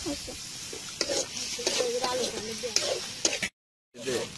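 Metal spatula scraping and stirring a wet curry sauce in a black iron kadai, the sauce sizzling in the hot pan. The sound cuts out completely for a moment near the end.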